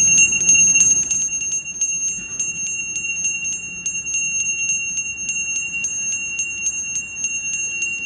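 Small hand bell rung continuously by hand, its clapper striking several times a second and keeping up a steady high ringing.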